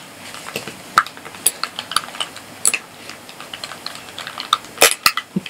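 Irregular small plastic clicks and taps from a handheld Snail adhesive tape runner being worked and fiddled with, as it refuses to lay its tape properly. One sharper click comes about a second in and another near the end.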